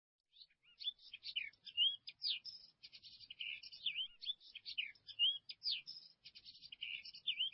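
Small songbirds chirping and twittering in quick, high-pitched notes that overlap almost without a break.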